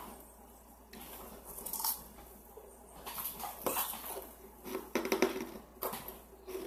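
Ice being chewed right at a microphone: a run of irregular crisp crunches, busiest in the second half.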